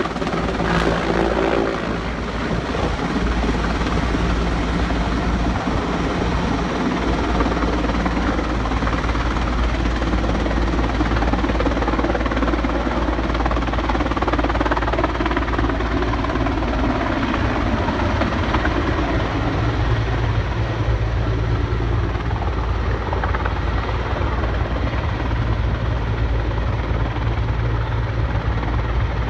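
S-64 Air-Crane heavy-lift helicopter hovering overhead with a heavy slung load, its rotors and turbine engines making a loud, steady drone. A low hum in it strengthens about two-thirds of the way through.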